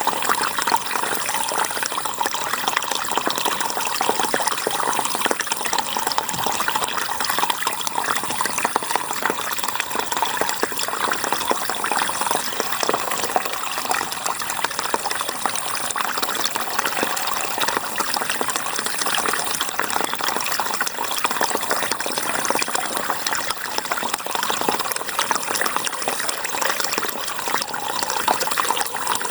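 River water rushing steadily, an even unbroken flow.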